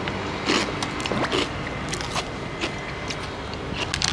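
A person eating and drinking: irregular crunchy clicks at about one or two a second, with a quick cluster near the end, over a steady low hum of street traffic.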